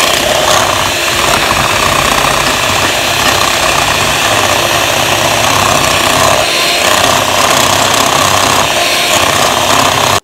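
Electric hand mixer running steadily on high, its twin beaters whipping cream toward stiff peaks; a loud motor whir that cuts off abruptly at the end.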